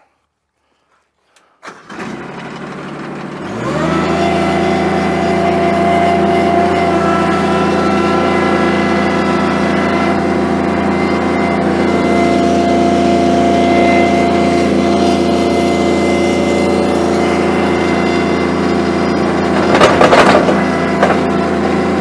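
A machine's motor starts up about two seconds in, winds up over a second or so, then runs at a steady speed. Near the end comes a short loud clatter as material lands in the metal trough.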